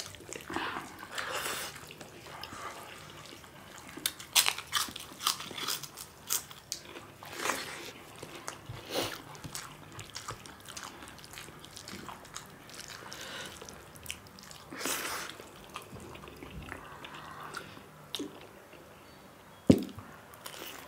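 People eating rice and curry by hand: close-up wet chewing and mouth smacks with scattered small clicks. Near the end comes one sharp, crunchy bite into a raw cucumber slice, the loudest sound.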